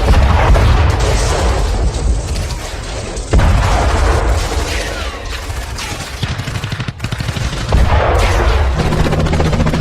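Battle sound effect: rapid machine-gun fire and scattered gunshots over a low rumble, with heavy booms of explosions about a third of the way in and again near the end. A steady low hum joins in during the last second.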